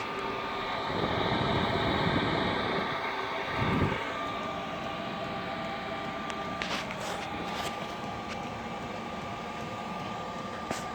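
A 12V diesel air heater running: a steady fan hum with a thin held whine. A louder rushing noise swells for about three seconds near the start, and a few sharp ticks come later.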